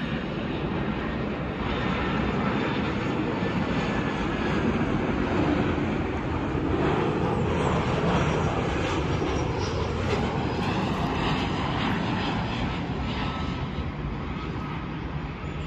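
Jet engines of an easyJet Airbus A320-family airliner on final approach, a steady noise of engines and rushing air that eases slightly near the end.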